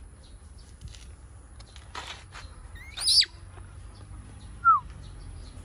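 Two short, loud, high-pitched animal calls: a sharp chirp about three seconds in, then a brief falling whistle a second and a half later, over faint rustling and clicks.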